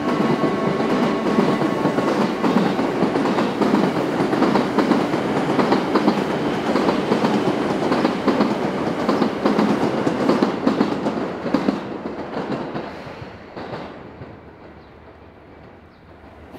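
Commuter train running past close by, its wheels clattering rhythmically over the rail joints, then fading away over the last few seconds.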